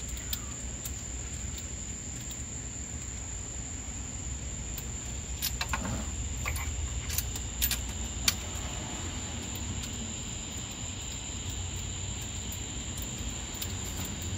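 Light metallic clicks and ticks of a spark-plug socket and extension turned by hand, snugging new plugs into the rear cylinder head, most of them a little past the middle. A steady high-pitched tone runs underneath.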